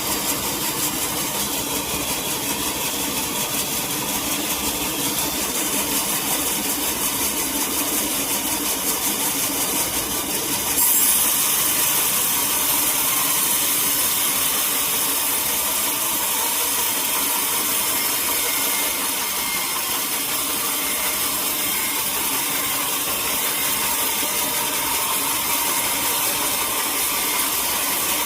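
Sawmill saw running through a log, a steady, dense machine noise. About eleven seconds in it gets louder and hissier and stays that way.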